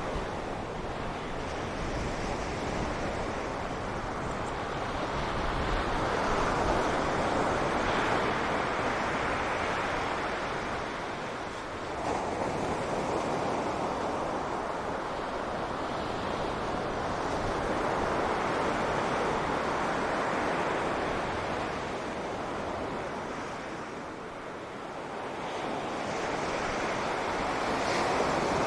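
Sea surf washing onto a beach: a continuous rush of waves that swells and eases in slow surges over several seconds, dipping briefly about twelve seconds in and again near the end.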